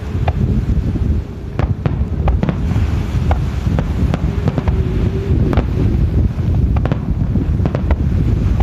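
Aerial firework shells bursting: an irregular string of sharp bangs and crackles, with a steady low rumble underneath.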